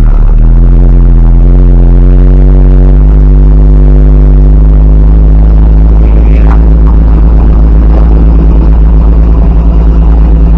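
Hino Dutro light truck's diesel engine labouring under an overload of sand on a steep uphill climb. It holds a loud, steady drone at nearly constant pitch after a brief break at the start.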